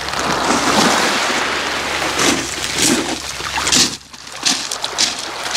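Small waves washing onto a pebble beach, the water hissing over the stones with a few sharp clicks of pebbles. The wash falls away briefly about four seconds in, then picks up again.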